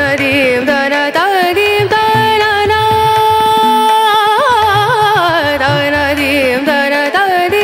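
Background music: a sung Indian classical melody with ornamented, gliding notes and one long held note near the middle, over a low accompaniment.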